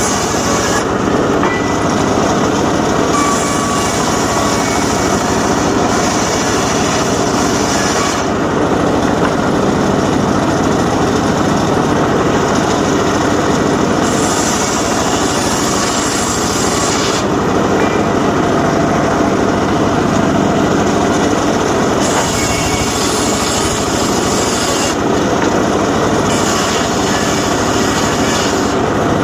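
Homemade engine-driven circular saw running continuously while cutting logs. Its sound grows brighter and duller in spells of a few seconds.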